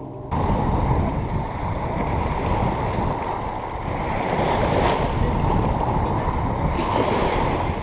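Steady rush of wind on the microphone mixed with small waves lapping at a lake shore, starting abruptly a moment in.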